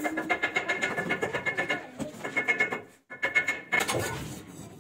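Rapid rasping scrapes of a hand tool against the brick of an arch, in three runs: the first long, then two short ones after about two and three seconds.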